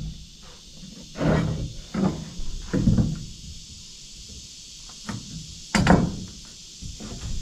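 Irregular knocks and thuds of wood being handled and tapped while stud layout marks are made on framing lumber, the loudest about six seconds in, over a steady high hiss.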